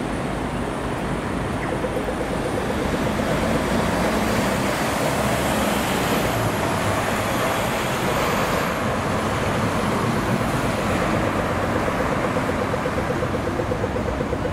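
City street traffic noise that swells through the middle as a vehicle passes, with a faint high whine. A rapid, even ticking runs underneath.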